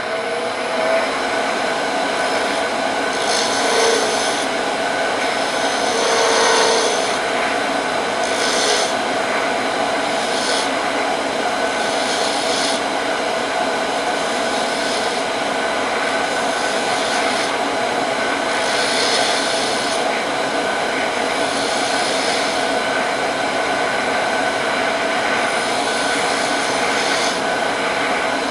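Wood lathe running steadily with a constant motor hum while a turning tool cuts into a spinning walnut handle blank in short passes, each a second or so of hissing.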